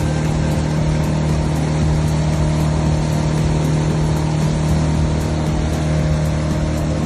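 An engine running at a steady speed, a constant low drone that holds unchanged throughout.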